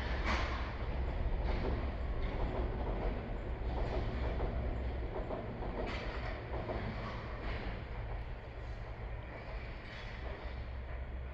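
Meitetsu Seto Line electric train running past with a steady rumble of wheels on rails and a few faint clicks, easing slightly toward the end.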